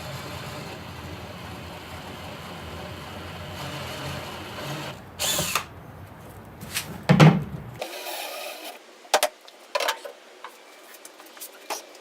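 Power drill with a step bit running steadily, over-drilling holes in a wooden board, with louder surges as it bites just past five and seven seconds, then stopping abruptly about eight seconds in. Scattered short knocks and rubs follow.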